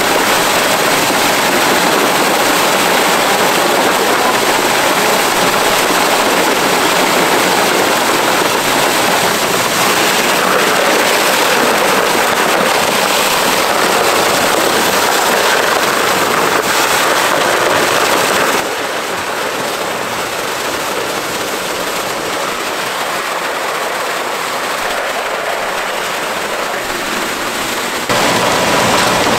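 Concrete boom pump truck running as concrete is pumped through the end hose into an ICF wall form: a loud, steady rush of machinery and pouring concrete. It drops in level about two-thirds of the way through and comes back up near the end.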